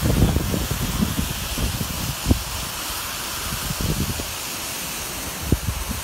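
Steady rushing hiss of storm runoff pouring down a mountainside, with wind buffeting the microphone in uneven low gusts and a couple of sharper knocks.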